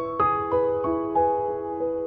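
Background music: a gentle piano melody, single notes struck about three times a second.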